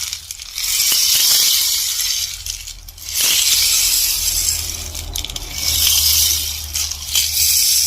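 Bamboo rainstick being tipped over repeatedly, its pebbles trickling down inside in a rain-like hiss. There are three pourings, each swelling and fading before the next begins.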